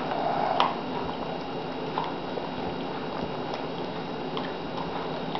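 A dog gnawing and licking at a whole raw chicken: irregular wet clicks and smacks over a steady hiss, the strongest in the first second.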